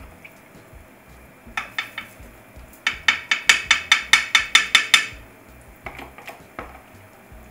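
A spoon clinking and tapping as it scrapes pancake batter out of a mixing bowl into a cast-iron skillet. There are a few clinks, then a quick run of about a dozen taps lasting about two seconds, then a couple more.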